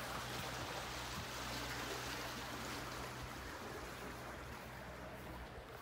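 Steady rushing of water with an even low hum underneath.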